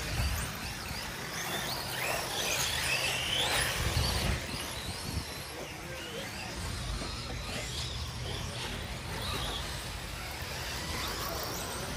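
Radio-controlled cars' electric motors whining, the pitch repeatedly rising and falling with speed, over a low rumbling background.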